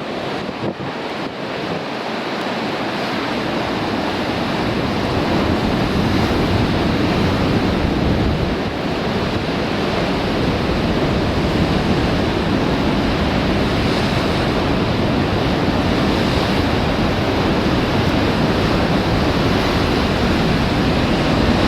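Sea waves surging and breaking on a rocky shore, with strong wind buffeting the microphone. The wash of surf grows louder over the first few seconds, then holds steady.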